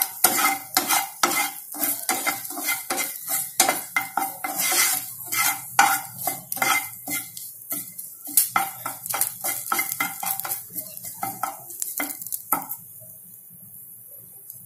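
A wooden spatula stirring and scraping curry leaves and green chillies frying in a little oil in a non-stick pan, with quick, irregular knocks and scrapes over a light sizzle. The stirring stops about two seconds before the end, leaving a faint steady hum.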